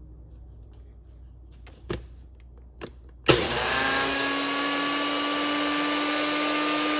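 A few clicks as the jar sits on the base of a bullet-style personal blender, then about three seconds in the motor starts and runs at a steady, loud whir, grinding roasted whole spices into powder.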